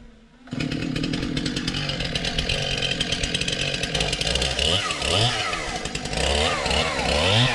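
Two-stroke chainsaw running, starting abruptly about half a second in, then revved up and down repeatedly in the second half as it cuts.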